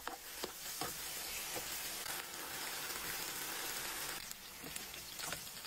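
Oil sizzling in a frying pan with pasta and garlic bread frying in it: a steady frying hiss with a few faint ticks, dropping off a little after about four seconds.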